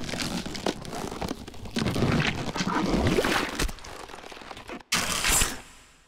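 Cinematic sound-design effects for an animated studio logo intro: dense whooshing noise full of sharp crackles and impacts, with rising sweeps. A brief dropout about five seconds in gives way to a final hit that fades out.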